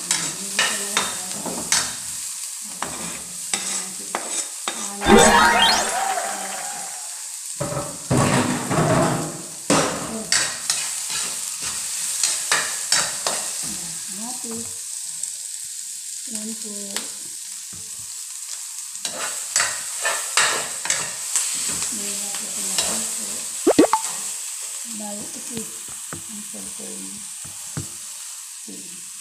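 Garlic and onion sautéing in oil in a pan, with a steady sizzle. A spatula scrapes and clicks against the pan as it stirs, louder around five and eight seconds in. A short metallic ring comes near the end.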